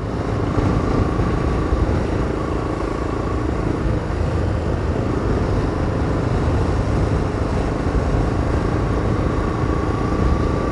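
Steady engine and road noise from the vehicle being driven, with a rumble in the low end and a faint steady whine above it.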